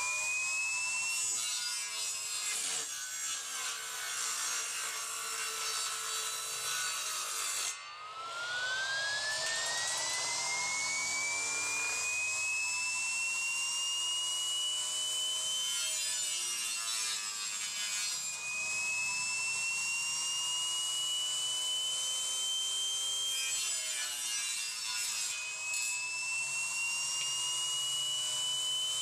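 Homemade saw driven by a 12-volt 775 DC motor: the spinning blade gives a high whine that climbs steadily in pitch as it speeds up. Several times it breaks into rough rasping as the blade bites into material and the pitch sags under the load. It stops briefly about eight seconds in, then spins up again from a lower pitch.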